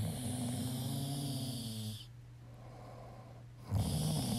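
A man snoring in deep sleep. A snore with a low buzzing pitch lasts about two seconds, then comes a quieter breath out, and the next snore starts near the end.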